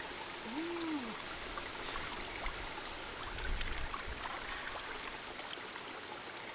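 Shallow stream flowing over rocks, with small splashes and drips as hands rinse food in the water. A brief rising-and-falling hum sounds about half a second in.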